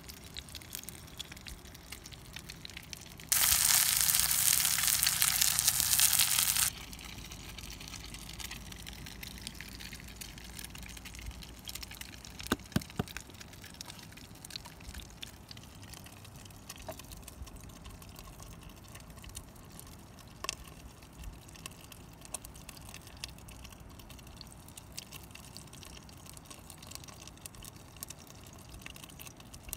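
Eggs frying in green tomato rings in a cast-iron pot: a loud, even sizzle for about three seconds, starting and stopping abruptly. Otherwise a faint steady hiss with a few soft clicks and knocks.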